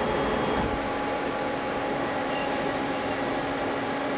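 Mazak Quick Turn 10N CNC lathe running at the start of its automatic cycle: a steady machine hum with a few held tones, without knocks or clicks.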